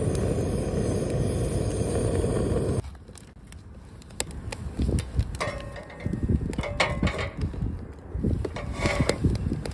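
A gas torch blasting into the kindling in a steel fire pit, a steady rush that cuts off abruptly about three seconds in. After that the wood fire burns on its own, with irregular crackles and pops and uneven surges of flame.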